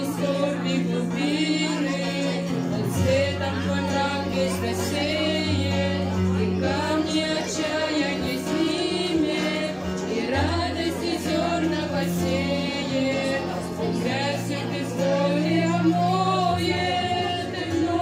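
A Christian song performed live on an electronic keyboard, with held bass notes under a wavering melody, and voices singing along.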